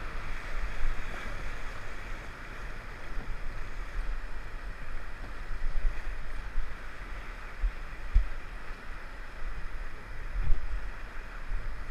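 Steady rush of river water around a paddle raft, with wind buffeting the microphone in low thumps now and then.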